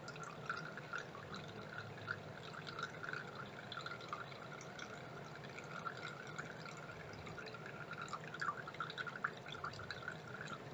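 Water draining out of a toy mini washing machine, trickling and dripping faintly with many small irregular drips.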